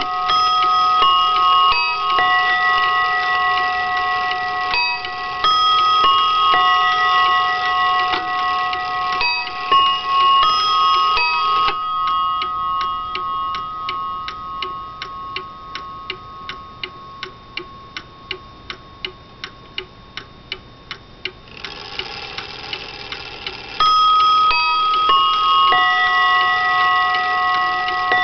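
A c.1900 Seth Thomas mantel clock's Sonora chime playing a quarter-hour melody, its notes a little out of tune. About twelve seconds in the chime stops and the clock's ticking, about two ticks a second, is heard as the notes ring away, then the chime starts again near the end.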